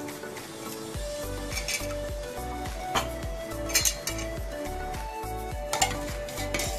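Background music with a steady beat, over a few sharp metallic clinks of a stainless-steel hand lemon squeezer and then a spoon against a steel bowl as lemon juice is squeezed into jaggery water and stirred.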